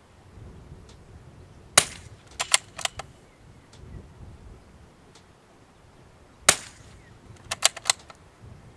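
Two shots from a scoped bolt-action rifle, about four and a half seconds apart, each followed within a second by a quick run of sharp metallic clicks as the bolt is worked for the next round.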